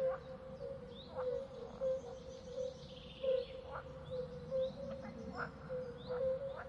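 Nature ambience of faint bird chirps and short calls over a steady low hum, with a few short clicks scattered through.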